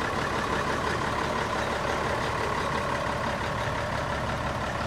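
1982 Mack cab-over truck's Mack diesel engine idling steadily.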